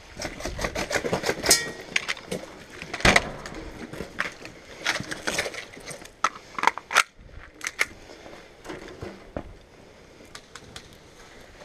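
Scattered sharp cracks and clicks of airsoft gunfire, gas-powered replica shots and BB hits, loudest and densest in the first seven seconds, then fainter clicks and handling noise.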